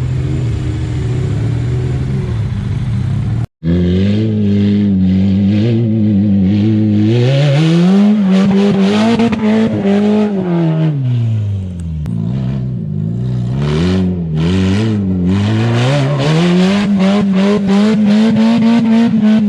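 Lifted Mazda Miata kart's four-cylinder engine revving in mud, rising and falling again and again with a rushing hiss over it, as it tries to drive through. The engine note is steady at first, cuts out for an instant about three and a half seconds in, then comes back revving.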